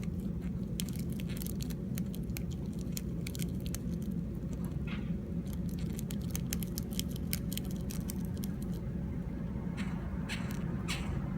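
Irregular clicking and scratchy rasping from mating Japanese rhinoceros beetles, the odd noise they make while coupling, over a steady low hum.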